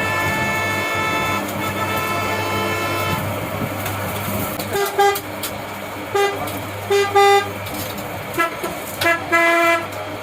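Vehicle horn sounding: one long held tone for about three seconds, then after a pause a run of short, repeated toots, some in quick pairs. A steady low hum runs underneath.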